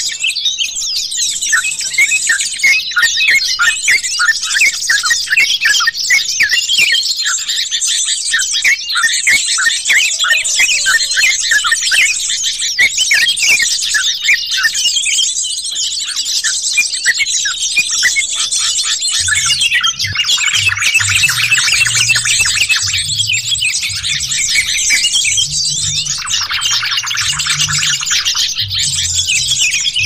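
Many bulbuls chattering and calling at once in rapid, overlapping bursts: a bird-lure recording of trucukan (yellow-vented bulbul) and jogjog calls. About two-thirds of the way in, a low pulsing sound joins beneath the calls.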